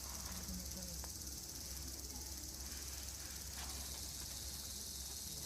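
Steady high-pitched chorus of insects, with a low steady hum underneath.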